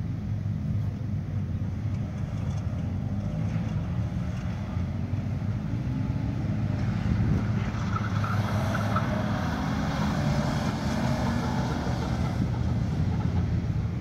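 2001 Subaru Legacy Outback's flat-four/boxer engine revving up and down as the car is driven hard around a dirt rallycross course. It gets louder and higher-pitched from about eight seconds in as the car comes nearer.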